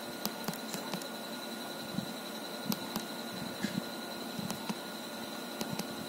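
Nokia 6111's navigation key clicking under a thumb, about a dozen small irregular clicks as the menus are stepped through, over a steady hiss with a thin high whine.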